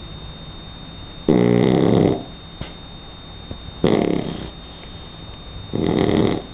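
Three-month-old Shar Pei puppy snoring: three loud snores about two seconds apart, each lasting under a second.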